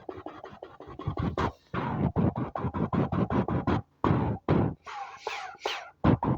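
Electronic background music with a fast, even pulse of about five beats a second and scratch-like effects, dropping out briefly twice, with falling synth swoops about five seconds in.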